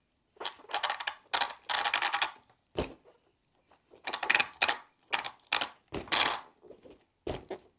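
Hard plastic and metal drivetrain parts of a Traxxas Rustler 4X4 VXL RC truck clicking and clattering irregularly as the slipper clutch assembly is worked into place and the car is rolled a little to line it up, with a couple of duller knocks.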